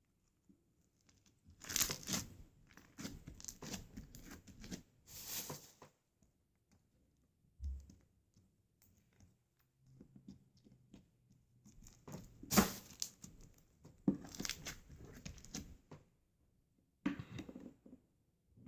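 Slime being squished and stretched by hand, making fast crackles of small clicks and pops. It comes in three bursts with short pauses between them, the sharpest pop about twelve seconds in.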